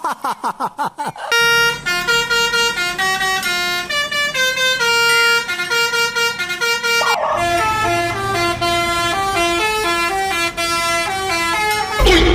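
Bus telolet horn, a Basuri-type multi-tone horn, playing a quick melody of stepped notes. The tune starts about a second in, pauses briefly near the middle, then goes on with a second phrase.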